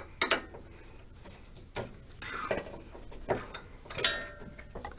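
Metal clinks and knocks as an alternator is worked into its mounting bracket on a small-block Chevy engine. There are about five sharp clinks spread apart, and the one about four seconds in rings briefly.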